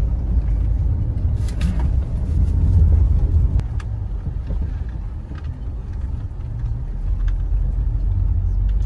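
A car driving along a paved road, heard from inside the cabin: a steady low rumble, with a few faint clicks.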